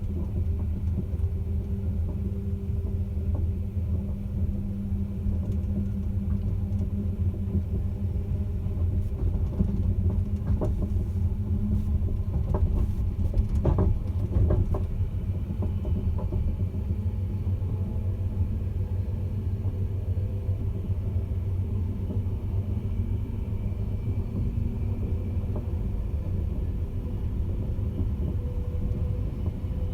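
Caledonian Sleeper train running with a steady low rumble, and a few sharp clicks and knocks about halfway through.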